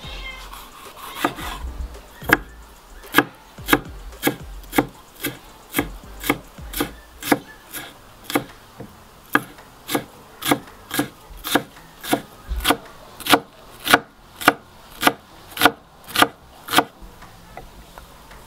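Large knife chopping a sweet bell pepper on a wooden cutting board: even knocks of the blade on the wood, about two a second, as the pepper is sliced and then finely diced. The chopping stops shortly before the end.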